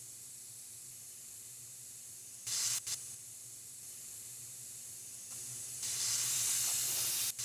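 Airbrush spraying compressed air in two bursts: a short hiss about two and a half seconds in, then a longer, louder hiss lasting about a second and a half near the end.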